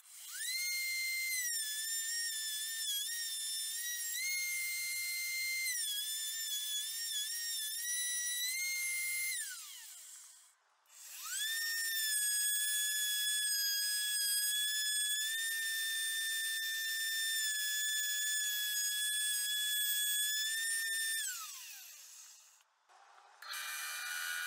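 Wood router mounted under a router table with a straight bit, run twice for about ten seconds each: a high whine that wavers as the bit cuts a tenon into a pine piece, then winds down with a falling whine after each switch-off. Near the end a band saw starts running.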